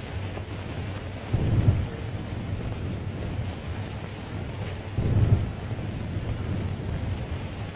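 Steady hiss and low hum of a 1935 film's optical soundtrack, with two brief low rumbling swells, about a second and a half in and about five seconds in.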